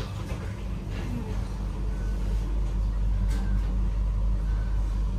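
Railway station ambience: a steady low mechanical hum, like a vehicle standing idle, with a few faint brief beeps and a short sharp click a little after three seconds in.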